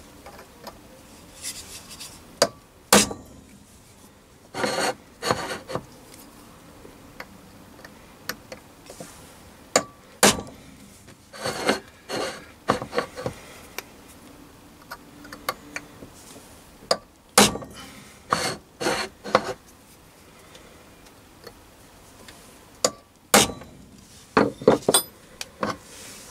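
Centre punch snapping into small marked indents on a steel chuck backplate: a handful of sharp metallic clicks spaced a few seconds apart, with scraping and handling of the metal parts between them.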